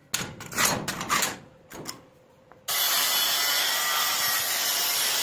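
A handful of short rasping strokes of hand abrasion, like scraping or filing rust off a steel blade. About two and a half seconds in, a power tool cuts in suddenly with a loud, steady hiss, as in grinding or sanding.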